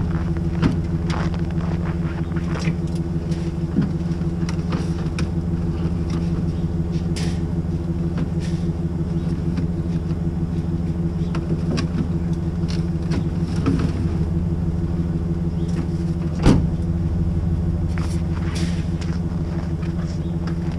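Chevy Silverado pickup idling steadily, with scattered clicks and knocks as a backpack leaf blower is set into a hitch-mounted cargo carrier; one sharper knock comes about three-quarters of the way through.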